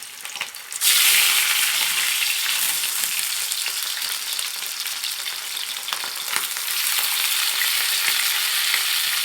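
Stuffed chicken thighs going into hot oil in a frying pan: a sudden loud sizzle about a second in, then a steady frying hiss with a few small crackles.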